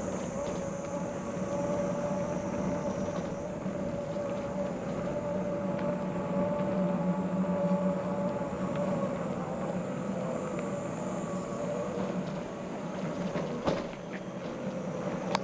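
Riding a bicycle along a paved road: steady tyre and road noise with a steady hum under it, and a couple of sharp clicks near the end.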